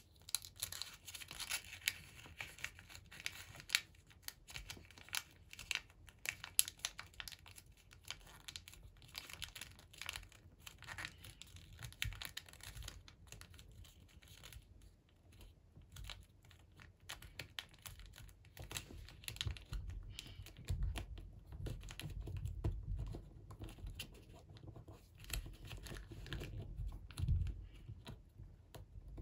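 Origami paper rustling and crinkling in irregular little clicks as it is folded, creased and tucked by hand. In the second half, soft low thuds join in as the paper is pressed flat against the table.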